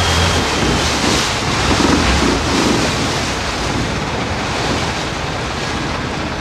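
Wind buffeting the microphone over the steady rush of water, a loud even noise with no clear pitch.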